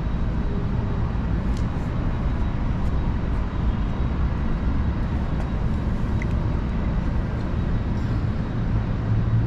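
Steady low rumble of road traffic going by, with a few faint clicks over it.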